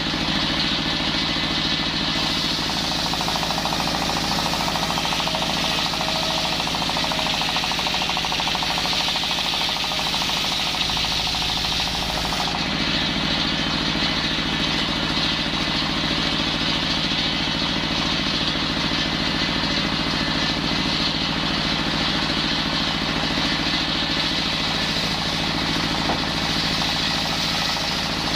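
Engine-driven circular saw running steadily while sawing timber into rafter stock, its engine drone under a loud high hiss from the blade. The hiss gets brighter about two seconds in and dulls again about halfway through.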